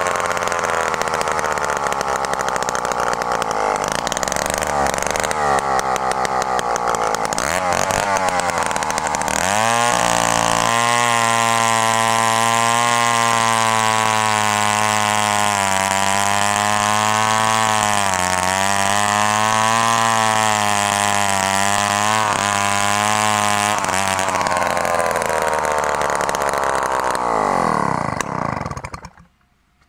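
Vintage Solo Rex two-stroke chainsaw revving up and down, then held at full throttle while cutting through a log for about fifteen seconds. The engine then winds down and cuts out near the end.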